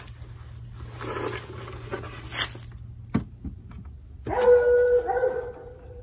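A dog whining: one long, steady, pitched call of about a second, the loudest sound here, starting about four seconds in. Before it, a couple of light knocks as a wooden beehive box is set down onto another.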